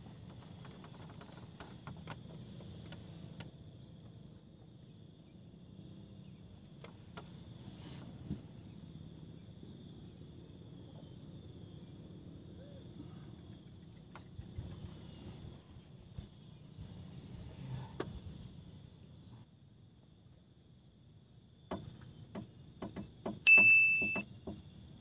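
Quiet outdoor ambience by still water: a steady low rumble and a faint steady high insect-like hum, with a few light clicks. Near the end comes a short, loud, high beep held at one pitch.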